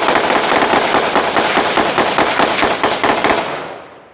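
Several firearms firing rapid-fire together in one continuous volley, the shots running into each other. It dies away about three and a half seconds in.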